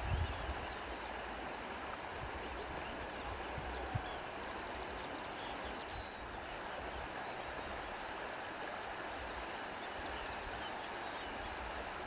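Wind blowing steadily, an even rushing hiss, with low gusts buffeting the microphone near the start.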